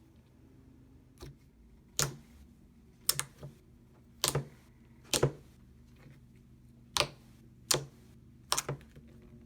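Thick slime being squeezed and pressed by hand, giving about a dozen sharp, irregular pops and clicks as trapped air bursts, some coming in quick pairs.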